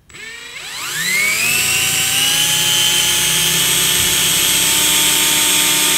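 Electric drill with a 1/4-inch twist bit boring through a plastic spring clamp. The motor winds up in pitch over about the first second, then runs steadily under load.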